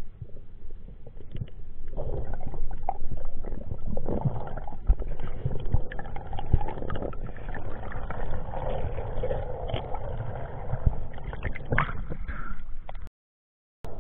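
Muffled underwater noise picked up by a camera below the surface: a low rumbling wash of water with scattered knocks and clicks, cutting out briefly near the end.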